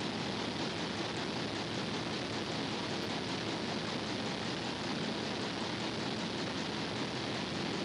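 A steady, even hiss with no distinct knocks, clicks or tones.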